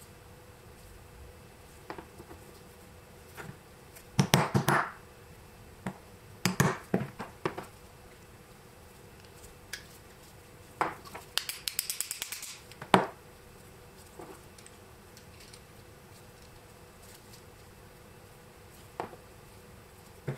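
Screwdriver clicking and scraping against a small metal part on a wooden block: three bunches of sharp metallic clicks and scrapes, about four, seven and twelve seconds in, the last ending in one louder click.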